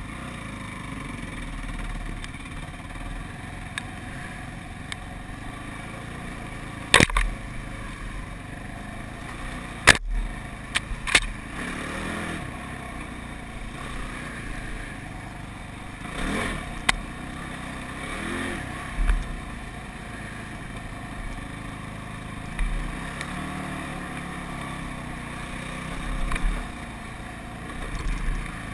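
ATV engine running while riding a woodland trail, revving up and dropping back several times. A few sharp knocks come about a third of the way in.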